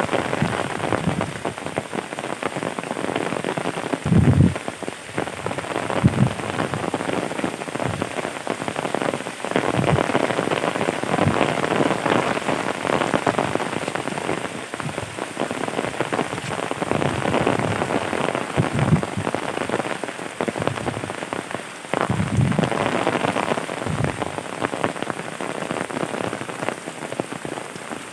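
Heavy rain falling steadily, a dense patter of drops, with a few short low thumps.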